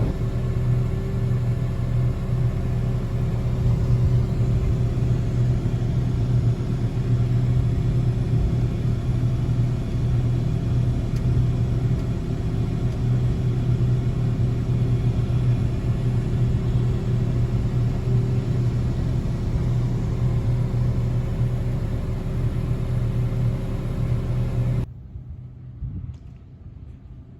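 Large diesel engine of farm harvest machinery running steadily with a strong low hum. It cuts off abruptly near the end, leaving a much quieter low hum.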